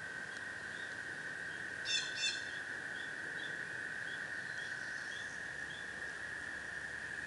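A steady, unbroken chorus of tree frogs, with a soft hiss of running stream water under it. About two seconds in, a bird gives two short, loud calls close together, followed by a series of soft, evenly spaced chirps.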